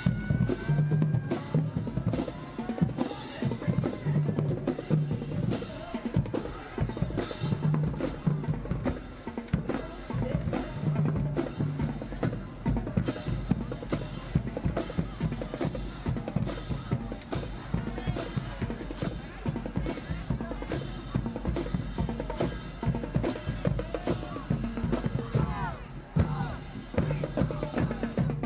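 Marching band drumline playing a cadence: snare and bass drums beating a fast, steady rhythm, with short low bass-drum notes repeating every few seconds.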